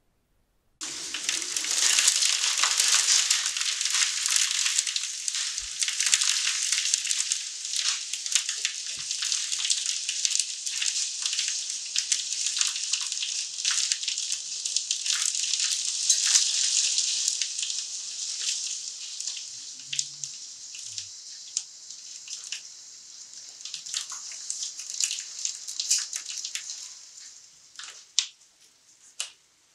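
Rain falling, a steady hiss thick with the patter of single drops, starting abruptly about a second in and fading away near the end.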